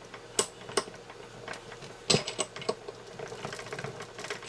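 Metallic clicks and light rattling of a straight-cut transmission gear being worked down onto its shaft by hand, a tight fit that does not drop on easily. The clicks are scattered, with a quick cluster about two seconds in.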